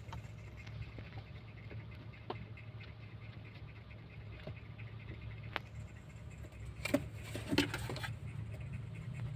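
A kitten's paws and claws scratching and tapping on cardboard boxes and a wooden crate: scattered light ticks, then a short cluster of louder scratches about seven seconds in, over a steady low hum.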